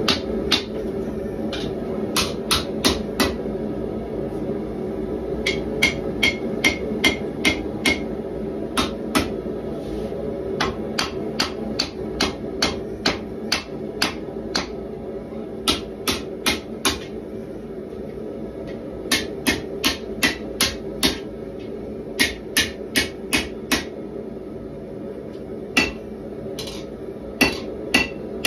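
Hand hammer striking red-hot 1095 carbon steel bar stock on an anvil while forging a knife blade, in runs of several blows about three a second with short pauses between, a few blows ringing. Underneath runs the steady drone of the gas forge.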